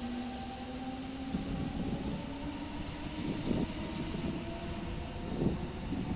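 Regional train hauled by an E.464 electric locomotive moving slowly along the station track. Wheels rumble on the rails under a faint electric whine that rises a little in pitch at first, and two louder clunks come about three and a half and five and a half seconds in.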